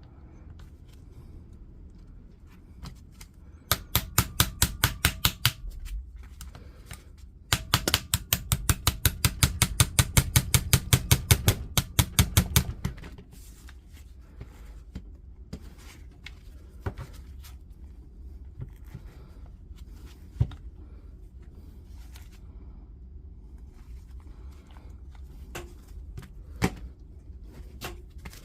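Rapid, even runs of clicking from a ratchet turning the bolt on the oscillating multi-tool's blade holder: a short run about four seconds in, then a longer one of about five seconds. After that, quieter handling of small metal parts with a few knocks, one sharp.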